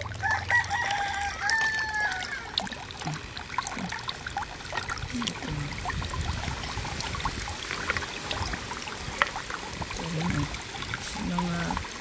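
A rooster crows once near the start, a call of about two seconds. Under it, water trickles and splashes steadily from a small tiered garden fountain, with small clicks as stones are handled in the water.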